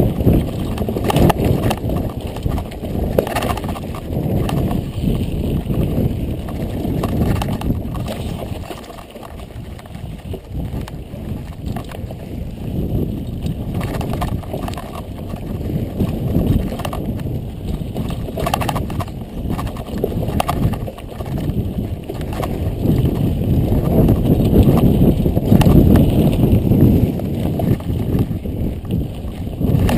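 Mountain bike riding a rough dirt and rock singletrack: tyres rolling and crunching over the trail, with irregular knocks and rattles from the bike over bumps and rocks. It eases off for a few seconds about a third of the way in and is loudest near the end.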